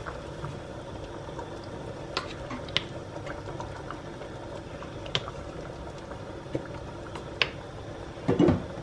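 Tomato meat sauce bubbling steadily in a stainless-steel pot on the hob, with a few sharp clicks and taps from sauce bottles and a spatula being handled, and a short louder noise near the end.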